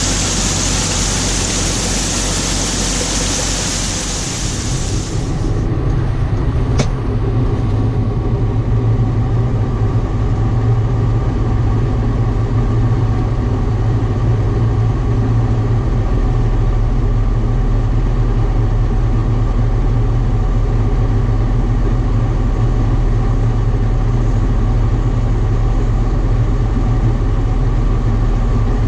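John Deere combine running steadily while harvesting soybeans, a constant low engine hum. A high hiss runs for the first five seconds or so and then cuts off, and a single sharp click comes about seven seconds in.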